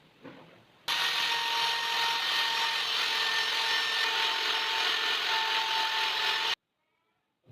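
An electric power tool running at a steady pitch as it works wood, with a steady whine over a rasping hiss. It starts suddenly about a second in and cuts off abruptly near the end.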